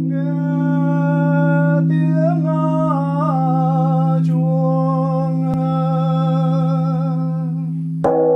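A single monk's voice chanting in long, drawn-out held notes, with a few wavering turns in pitch, over a steady deep drone. Near the end a sharp new onset brings in brighter ringing tones.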